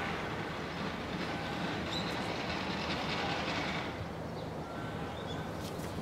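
A passing vehicle's steady rumble and hiss, with the hiss fading about four seconds in.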